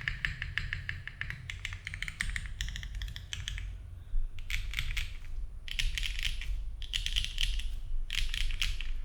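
Fast typing on a Cycle7 mechanical keyboard with HMX Xinhai switches, an aluminium plate, no foam and GMK Firefly keycaps. A steady run of quick key clacks is followed by a short pause a little under four seconds in, then several quick bursts of keystrokes.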